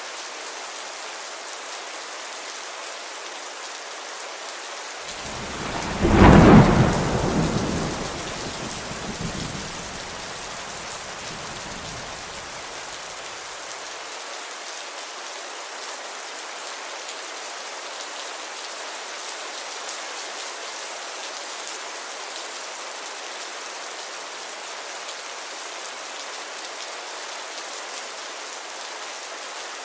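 Steady rain falling. About five seconds in, thunder breaks in, loudest a second or two later, then rumbles and fades away over the next several seconds.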